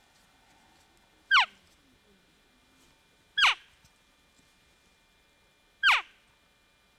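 Three short cow elk mews about two seconds apart, each a sharp squeal that falls steeply in pitch.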